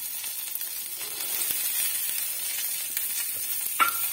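Oil sizzling steadily in a steel kadhai as garlic, ginger and green chillies fry. Near the end comes one sharp clink with a short ring.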